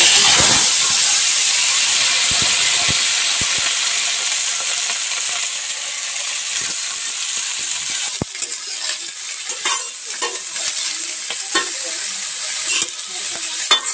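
Shredded cabbage and potato pieces sizzling in hot oil in a metal kadai. The sizzle is loudest as the cabbage goes in and settles over the first few seconds. A metal spatula then scrapes and taps against the pan as the vegetables are stirred.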